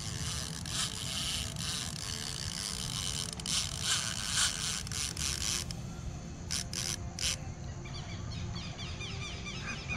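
Scratchy rustling hiss over a steady low rumble for about the first six seconds, three short sharp clicks, then rapid repeated chirping calls of small night animals.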